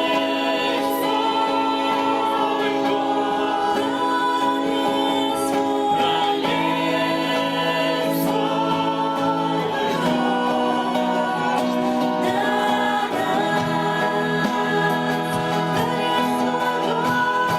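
Worship song with sung vocals over sustained instrumental accompaniment.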